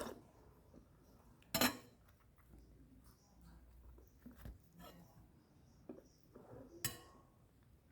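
Cutlery clinking against dishes: a sharp clink about a second and a half in, fainter knocks, and another clink near the end.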